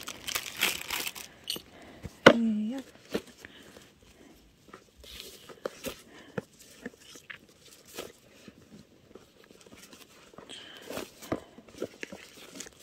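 Hands handling a paperboard chocolate gift box and its satin ribbon: scattered light taps, scrapes and rustles of the box being turned and untied. A brief murmur from the person about two seconds in.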